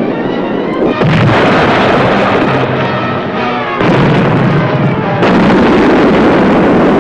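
Depth charges exploding around a submarine, as film sound effects: heavy blasts begin about a second in, near four seconds and past five seconds. Background film music plays underneath.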